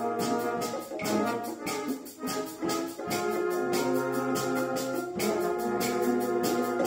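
Junior wind band of brass and woodwinds playing a piece together: sustained chords over a steady beat, with short breaks between phrases about two and five seconds in.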